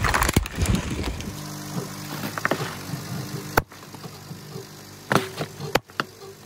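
A car tyre crushes a plastic cup full of water beads, a loud crackling crunch in the first second, over the low hum of the car's engine. Later, liquid-filled balloons are run over and burst, with two sharp bangs near the end.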